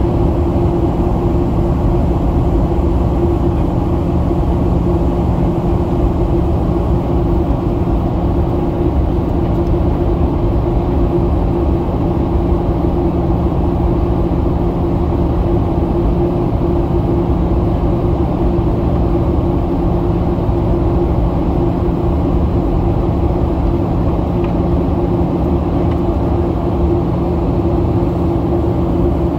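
Steady cabin drone of a Boeing 737 on final approach, heard from a passenger seat: engine and airflow noise with a constant low hum, unchanging throughout.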